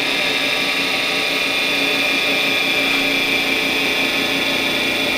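Charnwood W824P midi lathe's motor and spindle running with a steady whine that slowly sinks as the spindle slows from about 1970 to 1850 RPM. The motor is losing speed on its own, the sign of a faulty speed-control module.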